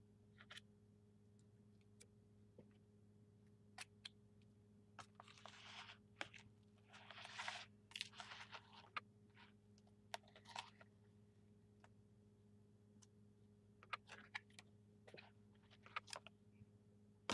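Quiet handling sounds: a card scraping and smoothing shaving cream in a plastic tub, with two brief rubbing scrapes about five and seven seconds in and scattered light clicks and taps against the plastic. A steady low hum sits underneath.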